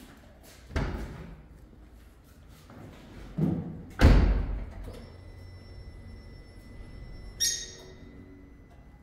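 Several dull thuds a few seconds apart, the loudest about four seconds in, with a faint steady high-pitched tone from about halfway.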